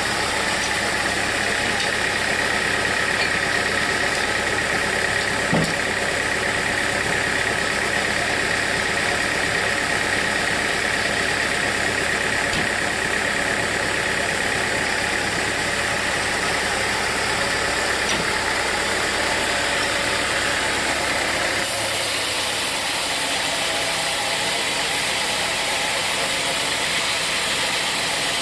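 Sawmill machinery running steadily, an engine with a constant whine over it. A single click about five seconds in; about 22 seconds in, the sound shifts to less low rumble and more hiss.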